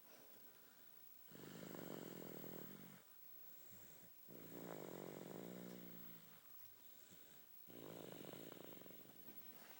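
Snoring in slow, even breaths: three snores about three seconds apart, each lasting a little over a second.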